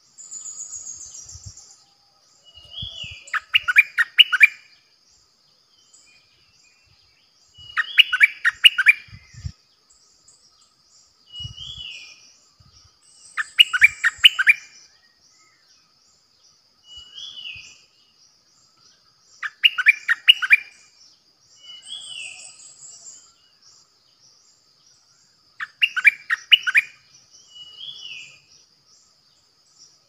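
Stripe-throated bulbul singing: a loud burst of rapid notes about every six seconds, five times, with a shorter slurred call and a high falling note in between, over a steady high buzz.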